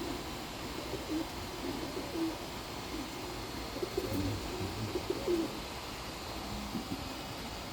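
Domestic pigeons cooing: low, warbling coos about two seconds in, then a run of them between four and five and a half seconds.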